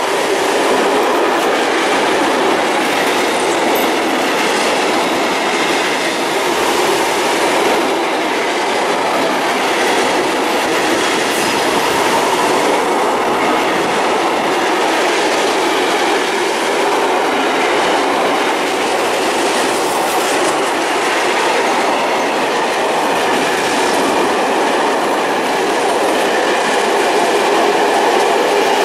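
Freight train of intermodal tank containers on flat wagons rolling past close by: the steady rolling noise of steel wheels on the rails, with faint clicks here and there as the wagons pass over the track.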